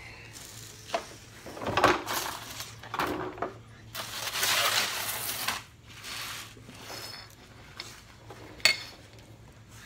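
Scraping and rustling with a few sharp clinks as someone crawls under a car and handles an oil drain pan and hand tools. The longest scrape comes about halfway through, and there is a loud clink near the end.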